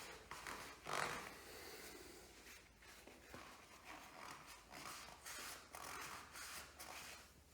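Faint rustling, rubbing and scraping of hands working on the motorcycle's engine, with a louder scrape about a second in, over a low steady hum.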